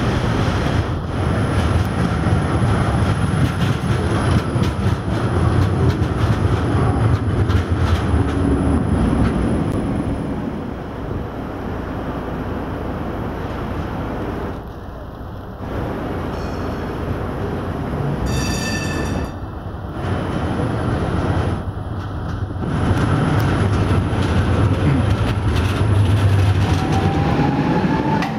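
Prague trams, Škoda 15T and Tatra T3 cars, rumbling along street rails as they pass, with steel wheels running on the track. A short ringing tone sounds about two-thirds of the way through, and a rising whine is heard near the end as a tram moves off close by.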